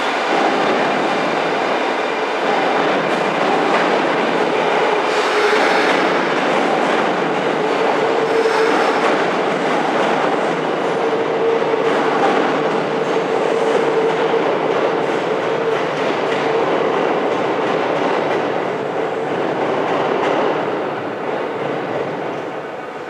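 Kintetsu 22000-series limited express train pulling out of an underground station and running off into the tunnel. Its wheels clatter over the rail joints under a steady whine, and the sound fades near the end.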